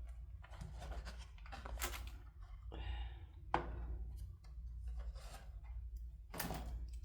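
Hands handling small plastic toy parts and packaging: scattered rustling, rubbing and scraping, with one sharp click about three and a half seconds in.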